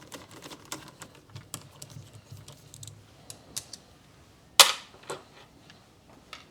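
Small clicking and ticking of a Torx screwdriver undoing small screws from a plastic battery case. About halfway through comes one sharp knock, with a smaller one just after.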